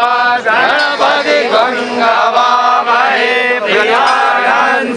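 A group of men chanting together, several voices overlapping without a pause.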